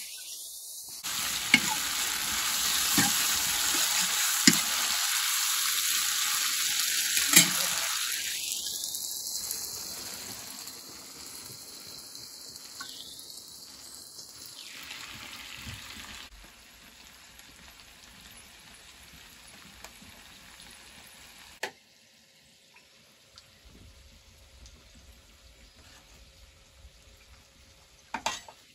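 Food frying in hot oil in a metal pan on a wood-fired mud stove, sizzling loudly while it is stirred, with a few sharp taps of a metal spoon on the pan. About eight seconds in the sizzle begins to die down, and in the second half only a faint hiss is left.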